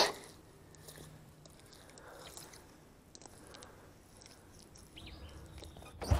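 Faint wet squelching of thick mudflat mud with scattered small clicks, the mud caking bare feet and hands.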